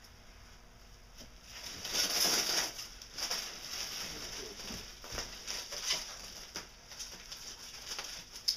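Plastic bubble wrap and kraft packing paper rustling and crinkling as a bulky wrapped car bumper is handled, loudest about two seconds in, with a sharp click near the end.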